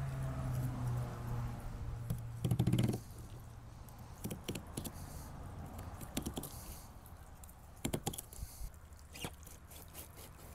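Fillet knife cutting a halibut, scraping and clicking along the rib bones in scattered small clicks. A steady low hum, the loudest part, runs through about the first three seconds and stops.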